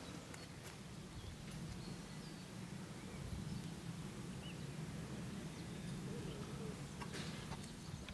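Outdoor ambience: a few faint, short bird chirps over a steady low rumble.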